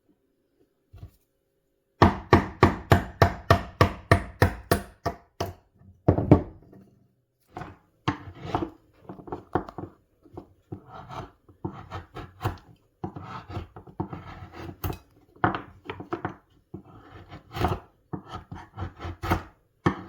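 A hand tool worked back and forth on wood in short strokes: about three or four quick, even strokes a second for a few seconds, then more uneven strokes of varying strength.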